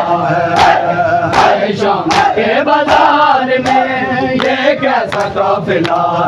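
A crowd of Shia mourners chanting a noha together, over a steady beat of open-handed chest-beating (matam) that lands about every three-quarters of a second.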